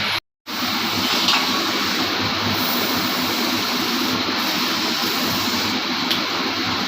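Steady workshop machinery running, an even whooshing noise over a faint low hum, with a brief total dropout just after the start.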